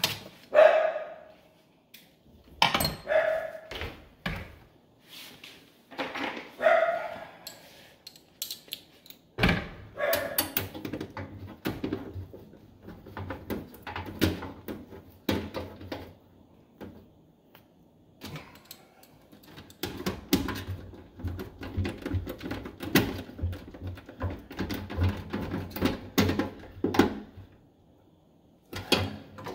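Hand work on a furnace air handler's sheet-metal cabinet as the blower assembly is secured. Three loud short sounds come in the first seven seconds. A sudden clank about a third of the way in is followed by long stretches of rapid clicking and rattling as screws are driven in with a screwdriver.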